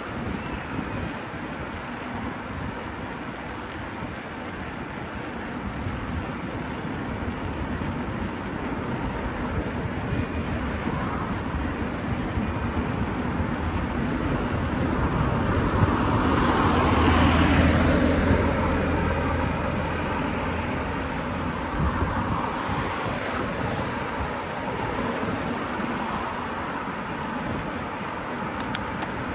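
Street traffic heard from a moving bicycle, with wind noise on the microphone. A car passes close about halfway through, its engine hum and tyre noise building over a few seconds, peaking and then fading away.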